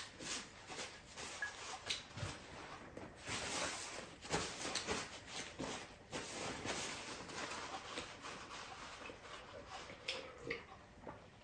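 Paper napkin rustling and crinkling as hands are wiped with it, then quieter near the end with a few short sounds of drinking from a glass mug.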